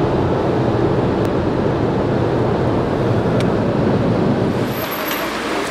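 Steady road noise inside a car cruising on a motorway: a deep tyre rumble under a hiss of wind, easing slightly near the end.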